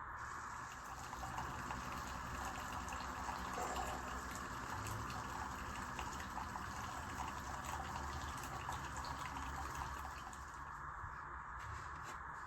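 Keurig K-Iced single-serve coffee maker dispensing coffee into a cup: a steady stream of pouring liquid that eases off near the end.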